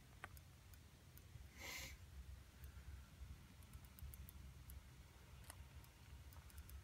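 Near silence outdoors: a faint low wind rumble, a brief soft hiss about two seconds in, and a few faint scattered clicks.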